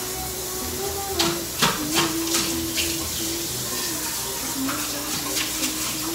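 Kitchen tap running into a sink while a utensil is rinsed out, with a handful of sharp knocks and clinks against the sink between about one and three seconds in.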